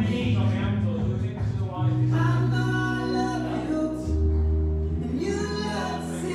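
Music with singing: a song with held bass notes that change about two and four seconds in.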